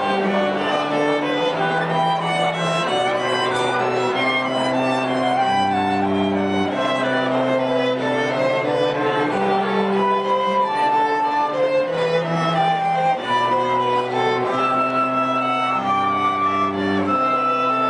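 Bowed string music: a violin melody over held chords and a bass line.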